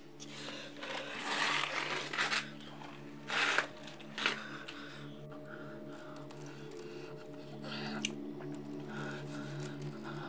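A scuffle: a few short breathy gasps and rustling of clothes, the longest about a second to two and a half seconds in, over a low steady drone.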